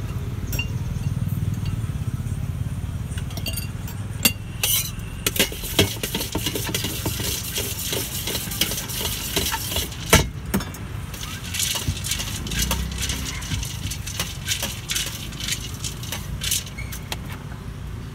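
Crunchy Kurkure corn snacks being shaken and tossed in a large steel vessel to coat them with masala. From about four seconds in there is a dry rustling rattle with many small clinks against the metal, and one sharper knock partway through, over a steady low rumble.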